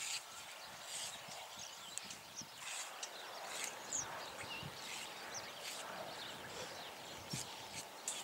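Small birds chirping with short high calls and quick pitch slides, over scattered light taps and clicks.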